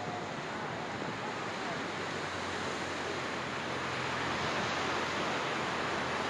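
Rushing whitewater of a Colorado River rapid, a steady roar of water that grows gradually louder as the raft draws near.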